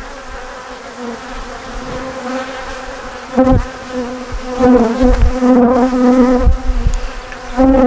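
Honeybees buzzing over an open hive: a steady, wavering hum that swells louder about halfway through, with a few low thumps.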